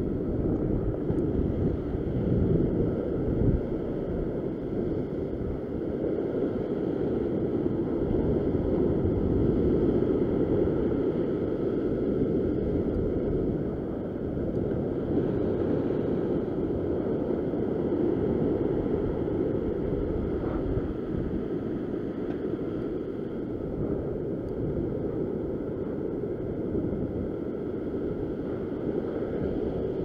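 Ocean swell surging and washing over a rock shelf, with wind rumbling on the microphone. The noise rises and falls slowly.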